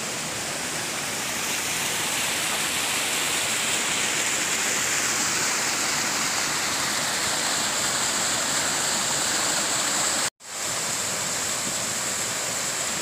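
Steady rush of river water running through stone-walled watercress terraces and spilling over rocks in a small waterfall. The sound cuts out completely for a moment about ten seconds in.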